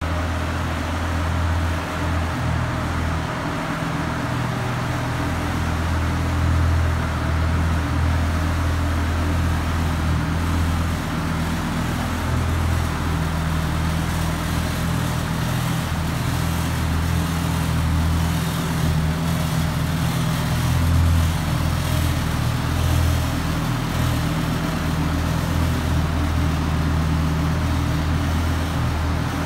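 Lamborghini Gallardo's 5.0-litre V10 engine idling steadily with a low, even hum, inside a concrete parking garage.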